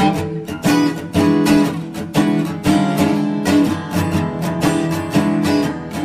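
Background music: acoustic blues guitar, plucked and strummed at a steady pace.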